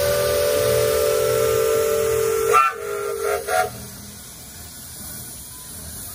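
Traction engine's steam whistle: a long steady blast that cuts off about two and a half seconds in, followed by two short toots.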